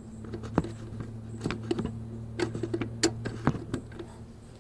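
Scattered clicks and light knocks of a 3/8 bolt and socket driver being fitted and started into the engine-mounting hole of a lawnmower deck, over a steady low hum.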